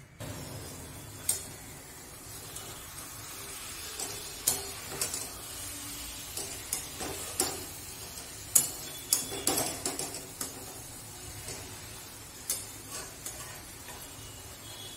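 A metal spatula stirring drumsticks and potatoes in a metal kadai, with repeated scrapes and clicks against the pan, over a steady sizzle as the mustard sauce cooks down nearly dry.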